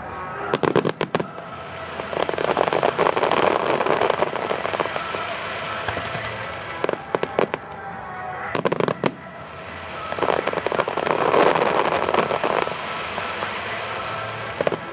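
Fireworks display: clusters of sharp shell-burst bangs, and two long stretches of dense crackling from crackle stars, about two seconds in and again about ten seconds in.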